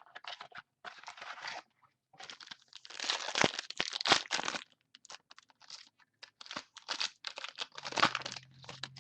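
Plastic trading-card pack wrapper crinkling and tearing as the pack is opened and handled, in irregular bursts, loudest about three to four seconds in.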